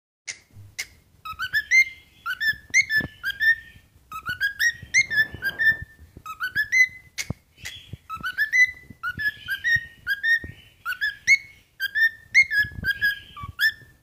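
Grey male cockatiel whistling its song: short phrases of quick rising and falling whistled notes, repeated over and over with brief pauses between them.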